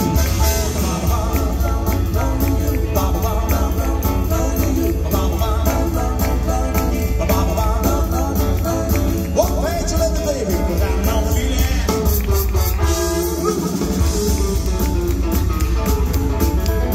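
A live retro swing and rock-and-roll band plays: electric guitar, upright double bass and drum kit keep a steady beat, and a man sings at the microphone.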